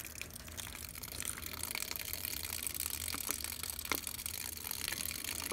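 Water running and trickling out from under the pried-loose cap of a Jandy Neverlube pool diverter valve: a steady splashing hiss with scattered drips as the valve body drains.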